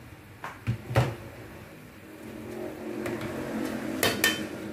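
Metal spoon clinking against the aluminium pressure cooker as salt goes in and the tripe is stirred: a few sharp clinks, the loudest about a second in and two more near the end, over a soft sizzle and scrape of the frying pieces that grows from about halfway.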